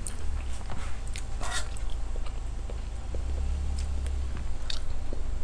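Close-miked chewing and mouth sounds of someone eating, with scattered small clicks and taps; near the end a metal serving spoon clinks in the soup pot.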